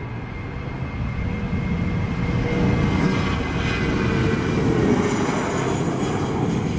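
British Airways Airbus A320 jet engines at takeoff power as the airliner rolls down the runway and rotates, a roar that grows louder over the first three seconds and then holds.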